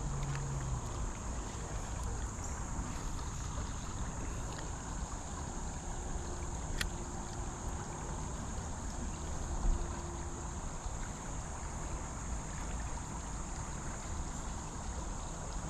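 Steady rush of flowing creek water, with a low rumble of wind on the microphone. A sharp click comes about seven seconds in and a dull thump a few seconds later.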